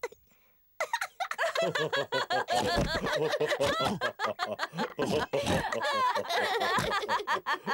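Several cartoon characters' voices laughing together, overlapping, starting after a brief silence about a second in.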